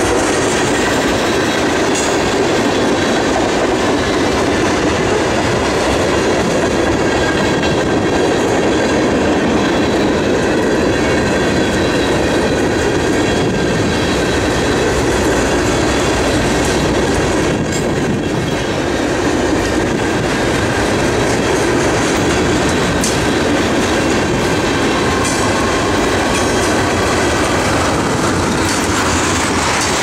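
Freight train of tank cars and high-sided gondolas rolling past on the rails: a loud, steady rumble of wheels and cars passing by.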